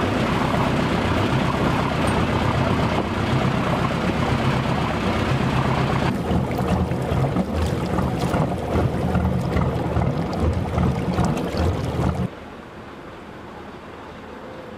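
Small fishing boat under way: its engine running with a steady low hum beneath the rush of water and wind on the microphone. The sound cuts off suddenly about twelve seconds in, giving way to a quieter, steady background.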